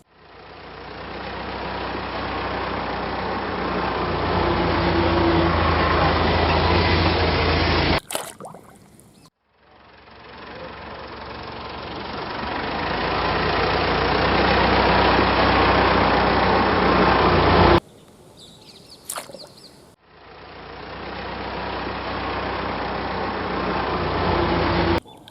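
A steady engine-like running sound in three long stretches, each swelling up from nothing. It breaks off abruptly at about 8 and 18 seconds, with short fainter gaps between the stretches.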